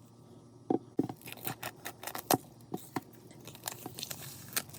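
Plastic wrapping on a CD album package being handled and peeled open: a couple of knocks, then a dense run of crinkling and crackling clicks.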